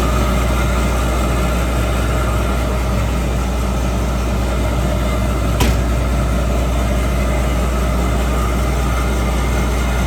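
Combine harvester engine running steadily with a deep, even hum. A single sharp click sounds about halfway through.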